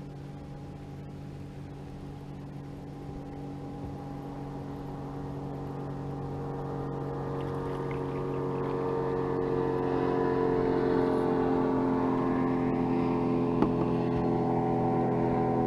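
Bass boat's outboard motor running at a steady speed, one unchanging engine tone that grows louder over the first ten seconds and then holds.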